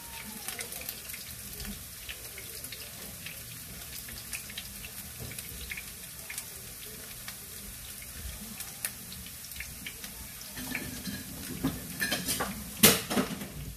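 Diced potatoes sizzling in hot oil in a granite-coated frying pan on a gas burner: a steady crackle of many small pops. Near the end, a brief burst of louder knocks and clatter.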